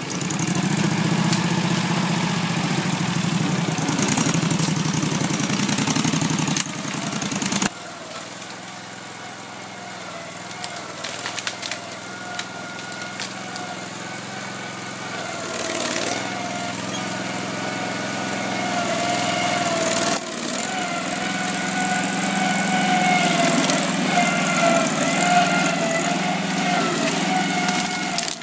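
Engine of a twin-tracked ATV running steadily. It drops suddenly to a quieter run about eight seconds in, then grows louder again, with another sudden change about twenty seconds in.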